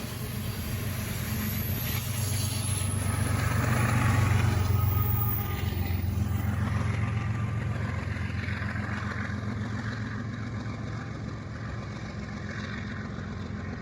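BNSF freight train's diesel locomotives running, a steady low drone that swells about four seconds in and then slowly fades.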